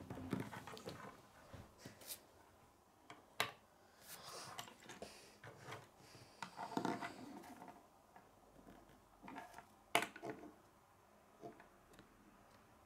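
Plastic K'nex rods and connectors being handled and fitted together, with scattered sharp clicks and clacks against a wooden tabletop, the loudest about three and a half and ten seconds in.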